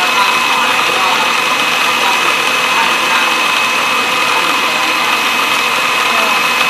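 Electric mixer running steadily at high speed, whipping eggs for a sponge cake, with a constant high whine over its motor noise.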